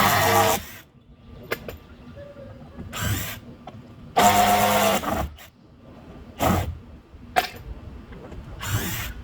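Power drill running in about five short bursts, the longest about a second, while backing screws out.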